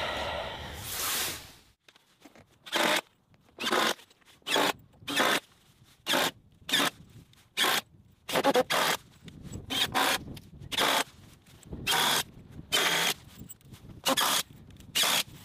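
Cordless impact driver driving screws into framing lumber in short bursts, about one a second and some eighteen in all, after a fading rush of noise in the first two seconds.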